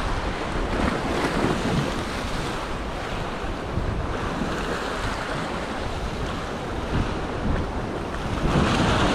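Sea swell washing and breaking against rocks, with wind buffeting the microphone; the surf swells louder near the end.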